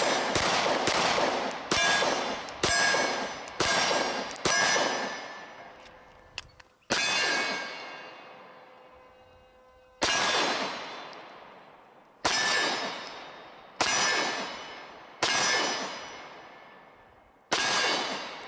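9mm Glock 26 pistol shots, each striking the steel plates of a dueling tree target, which clang and ring out after every hit. About a dozen shots: a quick string of five, then slower single shots one to three seconds apart.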